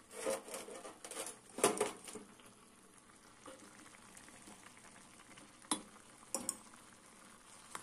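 Metal spoon and steel pots clinking and scraping as lumps of solid ghee are scooped out and dropped into cooked khichdi. A few sharp clinks come in the first two seconds, then quieter handling, with a couple more clicks near the end.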